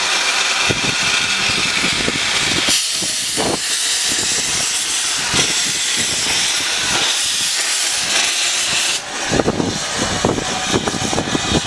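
Small saddle-tank steam locomotive letting off steam with a loud, steady hiss. The hiss cuts off suddenly about nine seconds in, leaving irregular low thumps.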